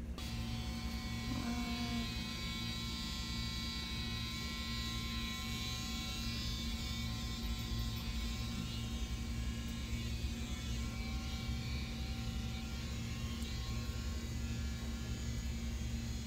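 Steady buzzing hum of a small motor running without change.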